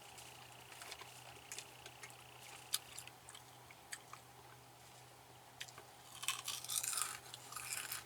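A person chewing crunchy food: scattered small crunches, then a denser run of crunching about six seconds in.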